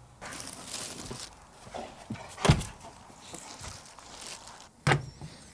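Rustling, then dull thumps: a sharp one about halfway through, the loudest, and another near the end, with a few softer knocks between.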